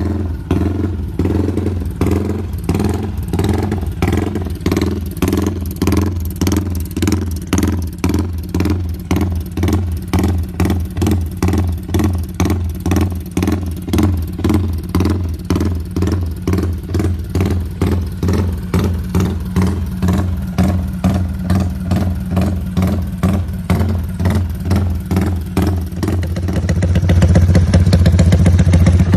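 Yamaha 150 cc single-cylinder motorcycle engine with an aftermarket exhaust, idling with a lumpy, loping 'rumble idle' beat of about two pulses a second, set by its tuned ignition timing. Near the end the engine picks up and runs louder and steadier.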